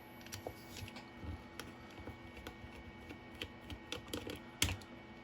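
Faint, irregular clicks and taps of small plastic parts being handled as an e-bike throttle housing is taken apart, with one sharper click near the end.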